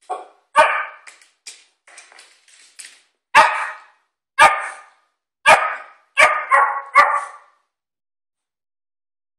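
Small Shih Tzu–poodle mix dog barking in play at a new bone: about seven sharp barks, spaced a second or so apart, the last three in quick succession.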